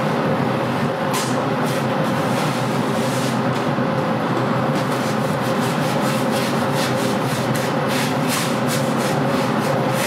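A large calligraphy brush scratching and swishing across paper in quick repeated strokes, busiest in the second half. Behind it runs a steady low rumble with a constant hum.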